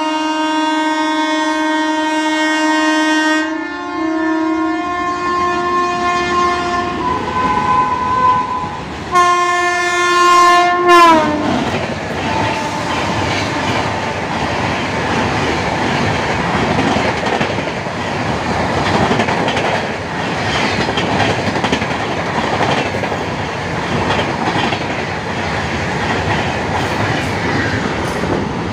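The 20806 Andhra Pradesh Express's locomotive sounds its horn in long blasts as it approaches, and the last blast drops in pitch as the locomotive passes about eleven seconds in. Then its coaches rush past at full speed, with steady rail noise and wheel clatter until the train has gone.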